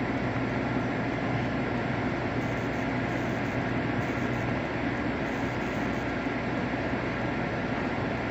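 Steady mechanical drone with a low hum, unchanging and without distinct knocks or other events.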